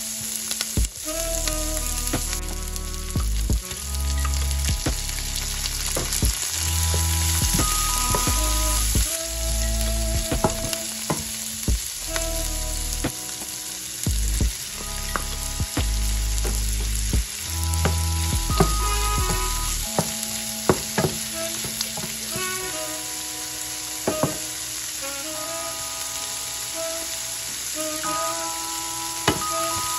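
Bacon, onion, shrimp and mushrooms sizzling in a hot frying pan as a wooden spatula stirs them, with scattered clicks and scrapes of the spatula against the pan.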